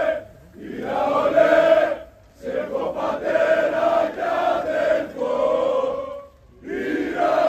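Large crowd of male football supporters chanting a song in unison, loud and sung phrase by phrase with brief breaks between lines.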